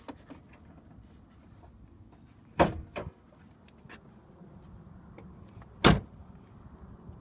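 A sharp knock and a lighter one just after it, then about three seconds later a louder slam as the Crown Victoria Police Interceptor's door is shut.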